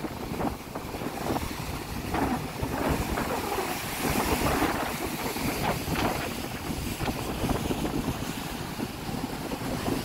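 Wind buffeting the microphone, with lake waves washing against shoreline rocks.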